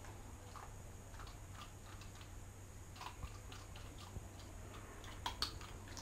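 Faint, irregular small clicks and ticks over quiet room tone, with a couple of louder clicks about five seconds in.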